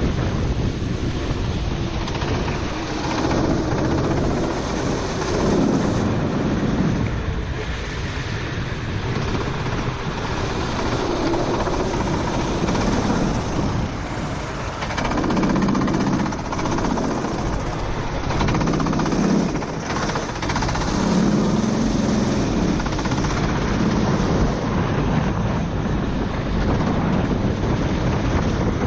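Four-stroke racing kart engine running at race pace, its pitch rising and falling every few seconds as it accelerates and lifts through corners, over a constant hiss of wind and spray from the wet track.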